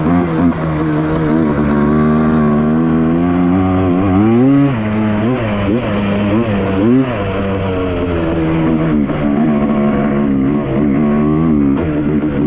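2000 Yamaha Blaster's 195 cc two-stroke single-cylinder engine running while being ridden. Its pitch mostly holds steady, rising sharply with the throttle about four and a half seconds in and again about seven seconds in, with smaller blips later.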